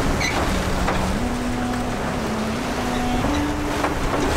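Wind buffeting the microphone and water rushing past the hull of a sailboat under sail in rough, choppy water. A steady low hum runs underneath and shifts pitch in a few steps.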